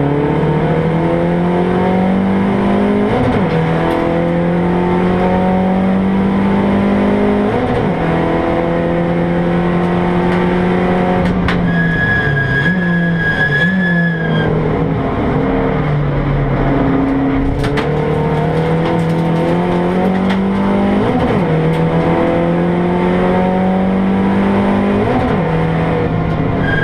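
Mazda 3 race car's engine heard from inside its caged cabin at racing speed, revving up through the gears with a short dip at each change, its pitch rising and falling. About halfway, a high steady squeal lasts a couple of seconds.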